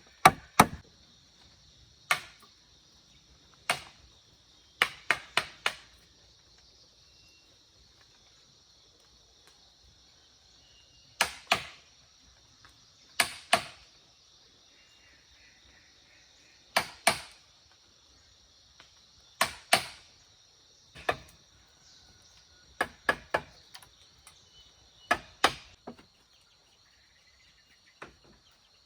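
A hand tool striking hard material, sharp blows with a short ring, coming singly or in quick runs of two to four with pauses of a second or more between. A steady high-pitched drone runs underneath.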